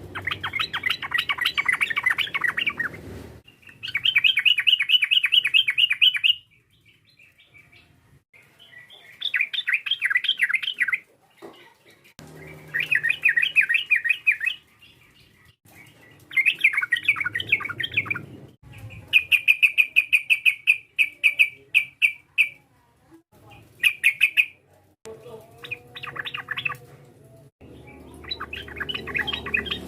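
Yellow-vented bulbul (trucukan) singing: rapid, bubbly chattering phrases in bursts of one to three seconds, repeated after short pauses.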